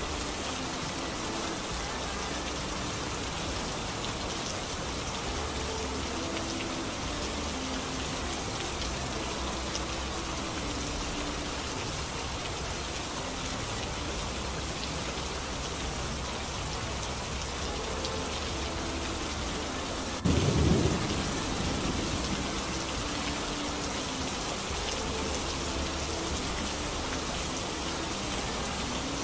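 Steady rain falling. About twenty seconds in, a sudden clap of thunder rumbles for about a second, the loudest sound in the stretch.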